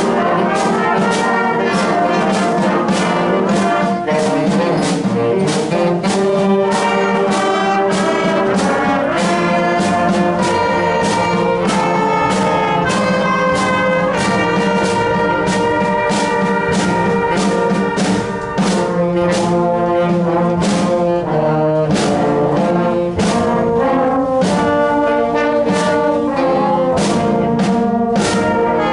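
Middle and high school concert band playing a medley of familiar patriotic Americana melodies. Brass leads, with drums keeping a steady beat.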